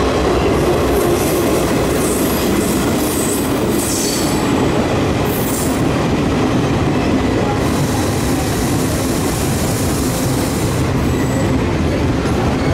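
Locomotive-hauled passenger train rolling slowly alongside the platform, its coaches' wheels running on the rails. Brief high squeals from the wheels or brakes come and go during the first few seconds.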